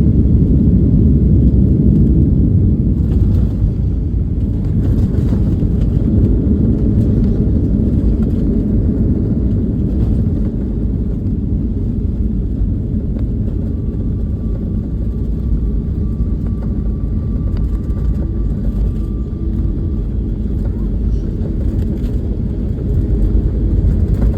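Airliner landing: a loud, steady, deep rumble of engines and airflow, easing slightly in the middle and building again near the end.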